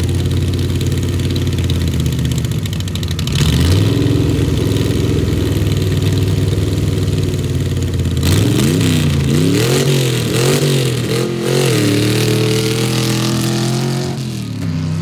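Vehicle engine running under way, its pitch rising about three seconds in, then revving up and down several times from about eight to twelve seconds before settling near the end. The engine is one said to have a misfire.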